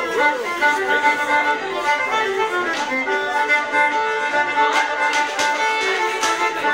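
Fiddle playing a dance tune to accompany rapper sword dancing, with a held drone-like note under the melody. A few sharp clicks sound in the second half.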